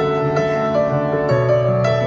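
Slow piano introduction played live through a stadium sound system: held chords ringing on, changing every half second to a second.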